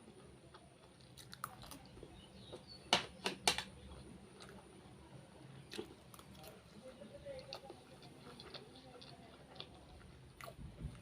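A person chewing a mouthful of fried rice, with faint wet chewing and a few short crunches or clicks, the loudest two about three seconds in.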